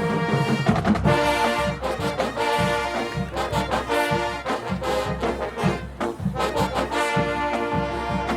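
Marching band playing: brass chords over a steady drum beat.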